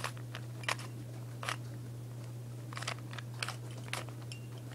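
Plastic Rubik's Cube layers being twisted by hand: a string of short clicks and scrapes, about seven, some in quick pairs.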